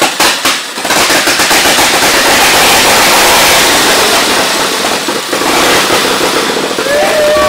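Vintage V-twin motorcycle engine starting on the workshop stand. It fires in a few separate bangs in the first second, then catches and runs loud and fast.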